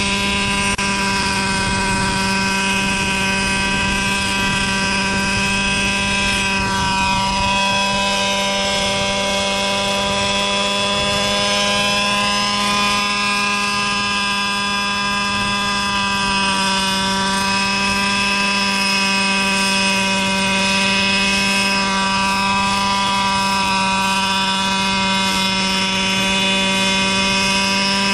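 JR Ergo radio-controlled helicopter's gas engine running steadily through its BH Hanson exhaust, with the main and tail rotors spinning while the model sits on its skids. The pitch dips and recovers slightly a few times.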